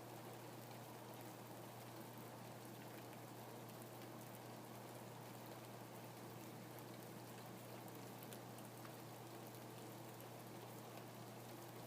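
Faint steady rain falling, with scattered individual drops ticking, over a steady low hum.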